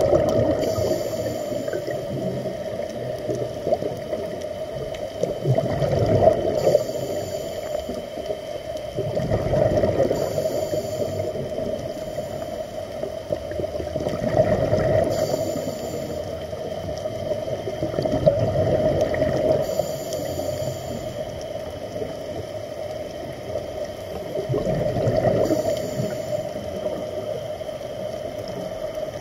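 Scuba diver breathing through a regulator underwater: a brief hiss with each inhalation and a gurgling rush of exhaled bubbles, about six breaths, one every five seconds or so.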